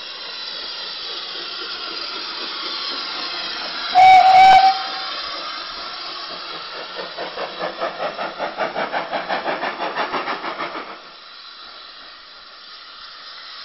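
Small saddle-tank steam locomotive: a steady hiss of steam, a short, loud whistle blast about four seconds in, then exhaust chuffing at about four beats a second as it pulls away, dying down near the end.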